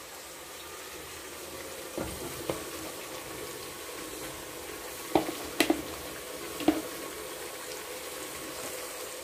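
Steady sizzling of oil in an enamel pot as grated carrot is layered over frying meat and onion for plov. A few short knocks and rustles come about two, five and six and a half seconds in as the carrot is dropped in and spread.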